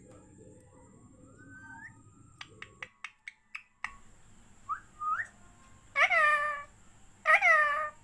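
Rose-ringed parakeet vocalising: a soft rising whistle and a few sharp clicks, a short whistled note about five seconds in, then two loud drawn-out calls near the end.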